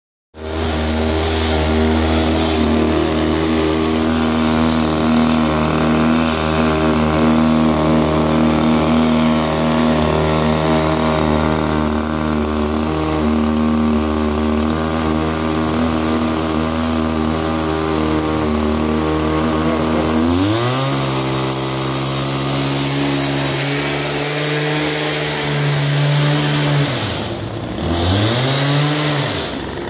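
Small petrol engine of a walk-behind aromatic-herb harvester running at a steady low speed, then revved up about two-thirds of the way through to a higher steady speed. Near the end its speed drops and picks up again twice.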